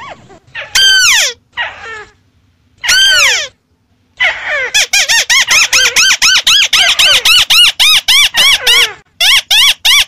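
White-browed crakes calling loudly. About a second in and again at three seconds there is a longer call that slides downward. After a short pause, a fast chatter of many short rising-and-falling notes begins and runs on with a brief break near the end.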